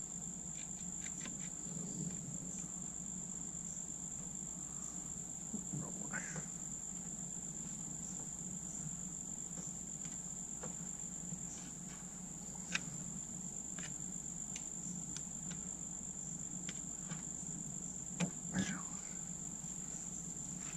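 Insects trilling in one steady, high-pitched tone, with a few faint clicks from pliers twisting a wire tie around a hose fitting.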